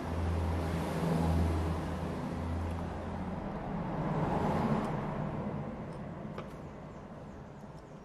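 Passing road vehicle: a low rumble and hiss that swells a little past the middle and then fades away, with a few faint ticks near the end.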